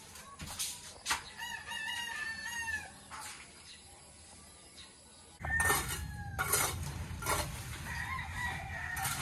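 Roosters crowing several times: one long crow a little over a second in and more crows in the second half, each falling in pitch at the end. Scattered knocks run under them, and a louder low background rumble starts about halfway.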